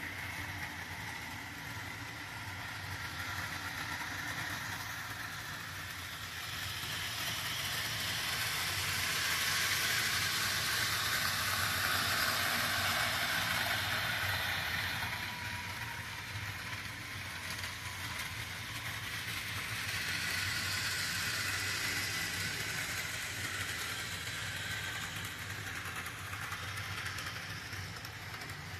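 HO scale model train running on the layout, a steady rolling, mechanical sound that swells as it passes close between about 8 and 15 seconds in and again more softly around 21 seconds, over a low hum.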